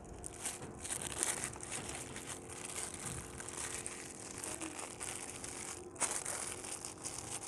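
Thin paper wrapper crinkling and rustling as it is folded by hand around a soft chicken shawarma roll, with a louder crinkle about six seconds in.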